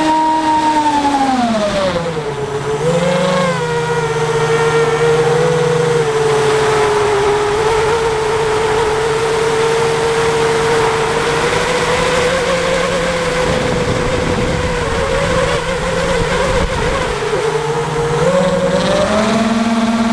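Electric motor and propeller of a Minion FPV aircraft whining in flight. The pitch drops about two seconds in, holds fairly steady with some wavering, then climbs again near the end.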